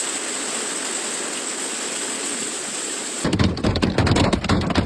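Heavy rain falling in a steady hiss. About three seconds in it cuts abruptly to a louder, uneven clatter of many quick knocks.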